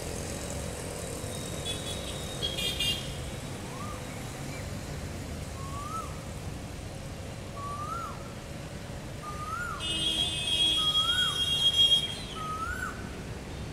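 Street ambience with a steady low traffic rumble. A bird repeats a rising-then-falling call about every one and a half seconds, six times from about four seconds in. A vehicle horn toots briefly near the start, then sounds for about two seconds near the end, the loudest sound.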